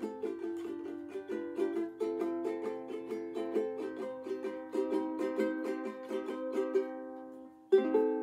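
Flight Designer Series Orchid all-wood concert ukulele with Aquila strings, strummed in a quick, even rhythm of chords. The chords ring out and fade near the end, then one loud strum comes just before it ends.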